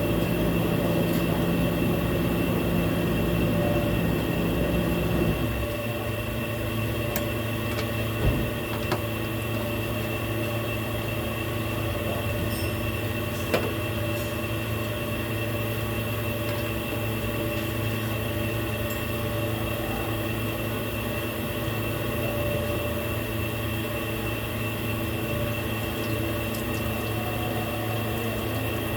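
Infiniti Q70S engine running steadily. About five seconds in its note drops to a lower, quieter idle, and there are two short knocks a few seconds later.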